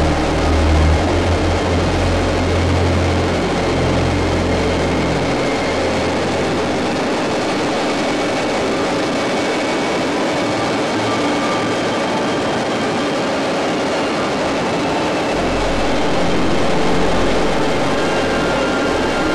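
PZL Kania twin-turbine helicopter hovering, heard from the cabin: a loud, steady mix of turbine and rotor noise, with a deep rotor throb that is strong at first, fades after about five seconds and comes back near the end.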